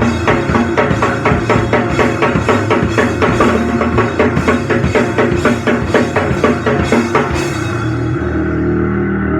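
Powerviolence band playing live: a drum kit hammers out an even, fast beat with cymbals over a distorted guitar and bass. About two seconds before the end the drums stop and the distorted guitar and bass ring on alone.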